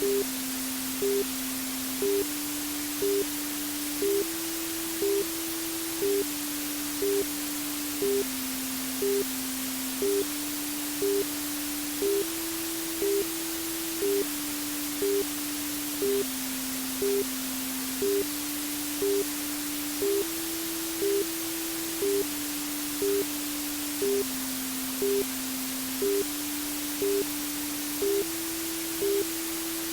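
Steady white-noise hiss for soothing a baby to sleep, under a soft low tone that steps up and down between a few pitches every two seconds, with short higher pips about once a second.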